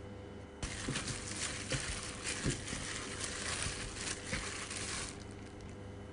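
Chicken wings being mixed by hand in a wet batter of egg, milk and starch in a glass bowl: a steady wet squishing with small clicks, starting about half a second in and stopping about five seconds in.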